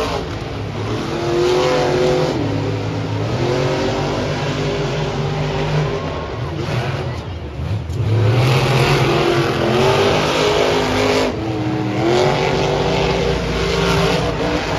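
Monster truck engines, supercharged V8s, revving hard as the trucks race, the pitch climbing and dropping several times as they throttle up and back off.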